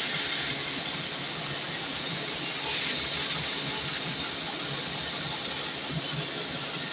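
Sawmill band saw running, a steady hiss with no breaks.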